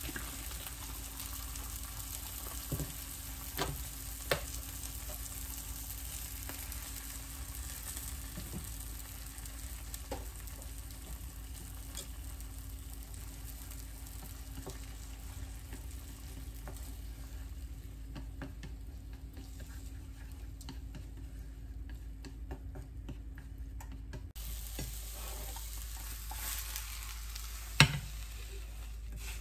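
Egg and greens sizzling in a nonstick frying pan as they are stirred and scrambled with wooden chopsticks, with a few light taps of the chopsticks on the pan. Near the end, one sharp knock as the pan meets the plate while the eggs are slid out.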